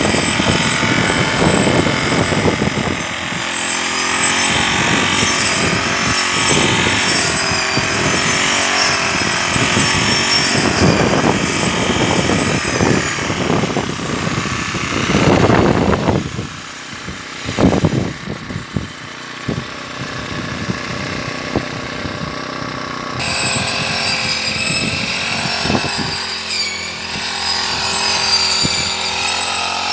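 Brush cutter's small engine running under load as its blade, fitted with a grass-gathering frame, mows through tall para grass; the engine pitch rises and falls as it cuts. It eases off briefly a little past the halfway point, then picks back up.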